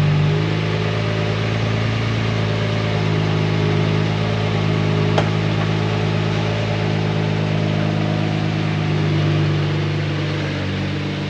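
Lamborghini Murciélago LP670-4 SV's V12 engine idling steadily, with a single brief click about five seconds in.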